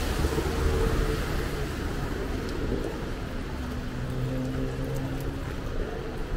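Rainy city street ambience: traffic passing with a steady hiss of rain and wet road. A low, steady engine hum comes through for a second or so past the middle.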